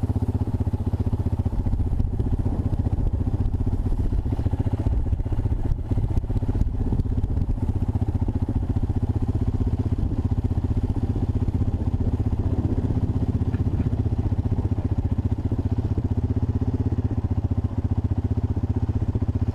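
Honda ATC 250SX three-wheeler's single-cylinder engine running at a steady speed while riding.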